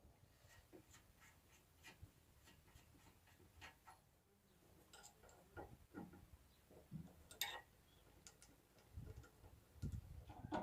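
Faint, scattered clicks and light taps of tools and metal parts being handled while an engine's belt drive is taken apart.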